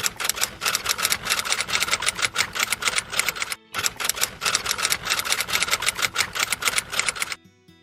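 A fast, even run of clicks, like typing, stopping briefly about three and a half seconds in, then running on until it cuts off near the end.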